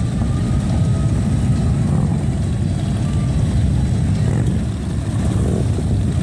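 A line of touring motorcycles riding slowly past, their engines giving a deep, steady sound.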